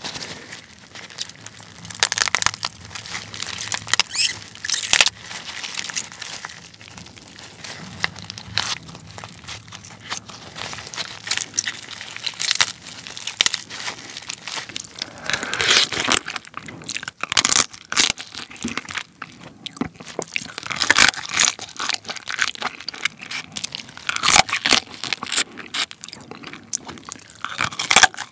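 Soy-sauce marinated raw crab being broken apart and squeezed by gloved hands: shell cracking and crunching in many sharp snaps, coming thicker in the second half. Near the end, teeth crunch on a crab leg shell.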